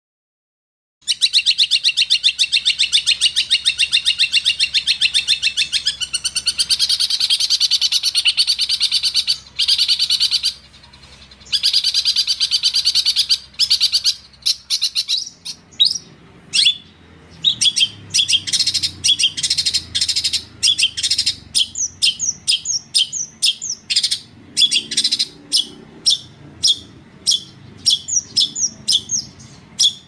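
Small songbird singing a long, very fast high trill that starts abruptly about a second in and runs with brief breaks to about halfway, then gives way to sharp, separate high chirps, several a second, over a faint low hum.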